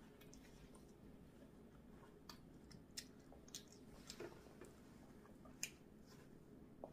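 Faint, wet mouth clicks and smacks of a small child eating orange slices, about five of them spread over a few seconds over a low room hum.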